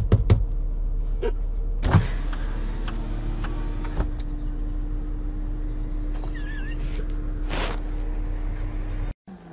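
A steady low hum of a running motor or engine, with a few knocks in the first two seconds. The hum cuts off abruptly near the end.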